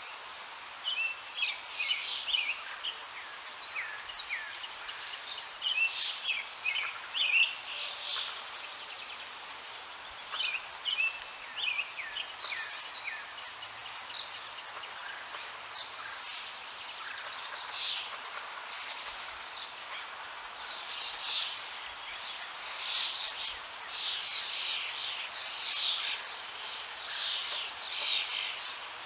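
Several songbirds chirping and singing over a steady rush of falling water.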